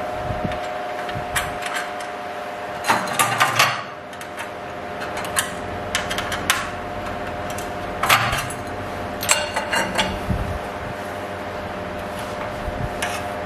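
Metal clicks and clatter of a hex key working screws on an aluminium table-saw fence rail and of the loose rail pieces being handled, in several short clusters over a steady background hum.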